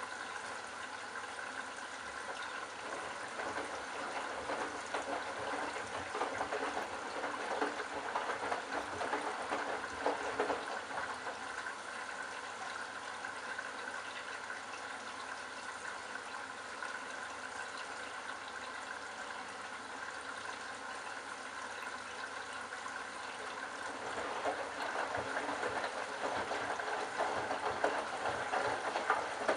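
Candy Bianca washing machine early in a Delicates wash, with water running and splashing inside the drum as a steady rush that swells louder around a third of the way in and again near the end.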